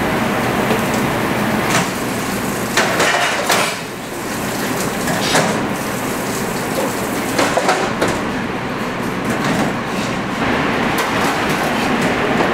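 Commercial kitchen clatter: sharp knocks and clanks of metal pans and utensils over a steady background din.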